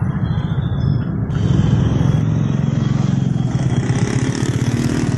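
Street traffic: motor vehicle engines running close by, a steady low rumble.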